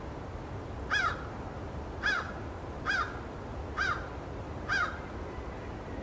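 American crow cawing five times, about a second apart, each caw rising and then dropping in pitch.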